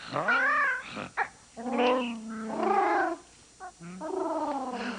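Bigfoot creature vocalizations: three wavering, warbling calls, each a second or so long.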